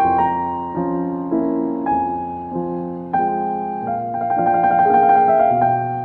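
Background piano music: single notes and chords struck about every half second to a second, each fading away.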